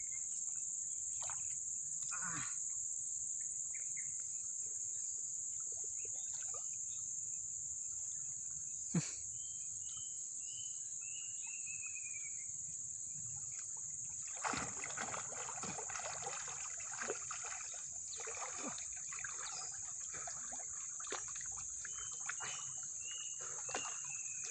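Steady high-pitched insect drone over river water. Past the middle the sound turns to water sloshing and splashing as a person wades chest-deep through muddy floodwater.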